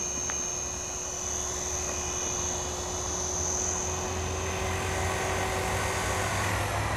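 Align T-Rex 450 XL electric RC helicopter flying low: a steady high whine from its motor and gears with a lower steady rotor tone. The tones fade near the end as it sets down.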